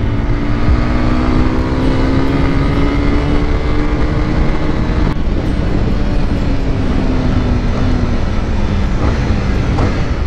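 Honda CB300R's single-cylinder engine pulling on the road: its pitch climbs slowly as the bike gathers speed, breaks off briefly about halfway, then falls steadily as it slows, over a constant low rush of wind and tyre noise.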